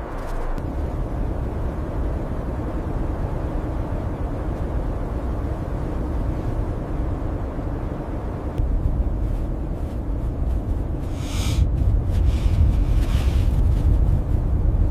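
Blizzard wind blowing steadily with a low rumble, growing a little stronger in the second half, with a few short, sharper sounds over it near the end.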